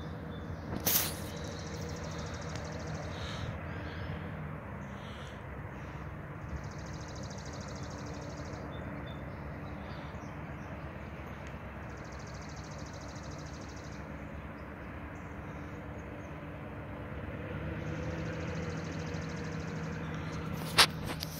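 Distant diesel locomotive running as the train approaches, a low steady hum that grows a little louder near the end, under birds trilling in repeated bursts of a few seconds each. Two sharp clicks, one about a second in and one near the end.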